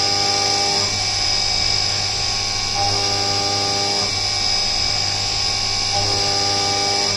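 DIY epoxy-granite CNC mill cutting an aluminium engine-case billet with an end mill under flood coolant: a steady high spindle whine and coolant spray. A mid-pitch cutting tone comes in three times, near the start, about three seconds in and about six seconds in, as the cutter engages.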